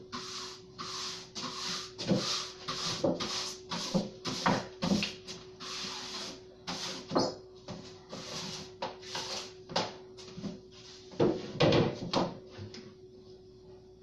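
Broom sweeping a floor: quick repeated bristle strokes with a few knocks, the heaviest near the end, over a steady background hum.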